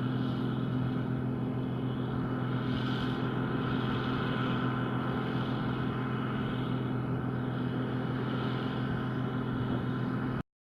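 John Deere 9560i combine harvester running steadily at work, a constant deep engine drone with threshing noise over it. It cuts off abruptly near the end.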